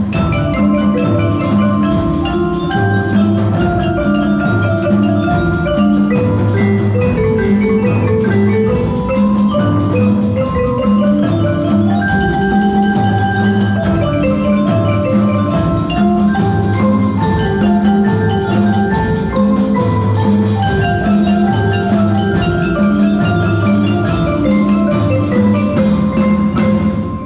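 Children's marimba ensemble playing: many marimbas and other mallet keyboards in quick struck notes over a steady, repeating low bass pattern. The music stops abruptly at the very end.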